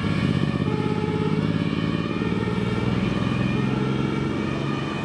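Diesel engine of an LF 20 fire engine running at low revs, a steady low throb close by.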